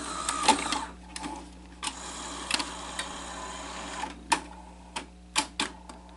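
Sony SL-HF350 Betamax VCR's tape mechanism running with a steady whir, then a string of sharp mechanical clicks near the end.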